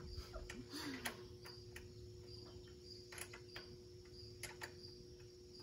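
A cricket chirping at an even pace, under a steady low hum, with a few light clicks here and there.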